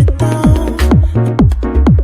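Background electronic dance music with a steady kick-drum beat, about two beats a second.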